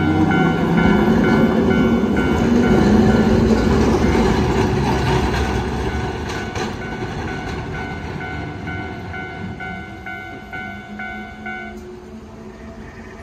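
Hankai Tramway's Mo 166, a 1928-built Mo 161-series tram, pulling away: its traction motors rise in pitch as it picks up speed, and its wheels knock over rail joints about halfway through as the tram fades off. A level crossing alarm dings about twice a second and stops near the end.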